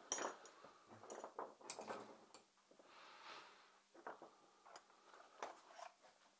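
Small tools and parts clicking and clinking as they are handled on a workbench and in a plastic toolbox: a few scattered light knocks with some soft rummaging in between.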